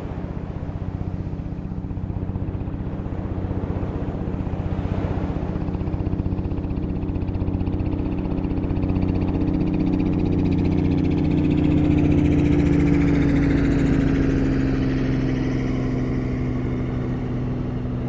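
A motor engine passes by with a steady low drone, growing louder to a peak about twelve seconds in and then fading, its pitch dropping slightly as it goes away. Ocean surf hisses underneath.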